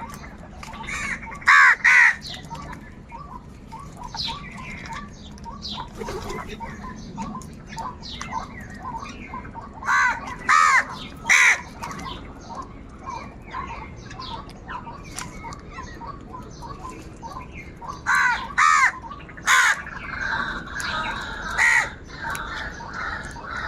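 Crows cawing: loud caws in clusters of two to four, about every eight seconds, over a steady chatter of quieter calls.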